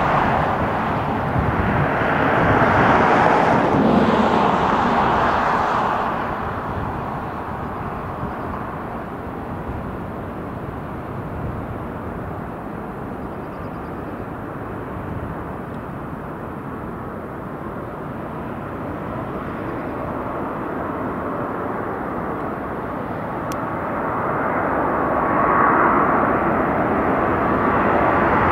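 Jet noise of a Boeing 747-400 with four Rolls-Royce RB211 engines on final approach, a steady rushing whine that grows louder over the last few seconds as the airliner nears. The noise is also loud for the first several seconds, then eases off in the middle.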